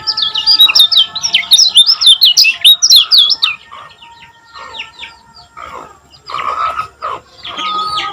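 Lemon-bellied white-eye (kecial kuning) singing a fast, dense run of sharp high chirps for about three and a half seconds, then sparser, quieter chirps.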